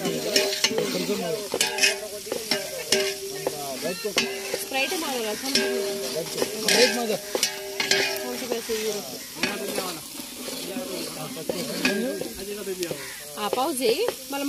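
Mutton curry frying and sizzling in a large pot on a wood fire, with a ladle stirring and scraping through it in repeated short strokes.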